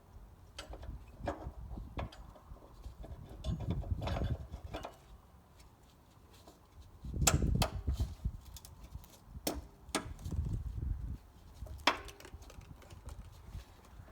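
Irregular sharp clicks and knocks, about ten in all, with bursts of low rumbling in between, like someone moving about and handling things. The loudest cluster comes a little past the middle.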